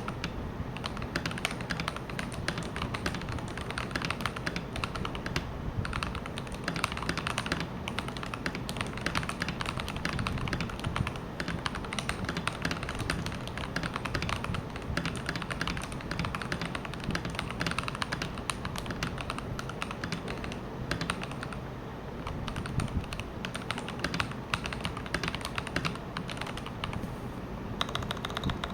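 Continuous typing on a Keychron V1 mechanical keyboard with Akko CS Ocean Blue switches lubed with Krytox 205g0, tempest-modded, with stock stabilizers: a steady stream of fast, uneven key clacks.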